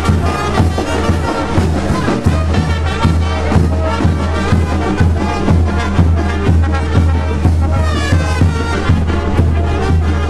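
Walking brass band playing live: trumpets and trombones over a tuba bass line, with a steady bass-drum beat.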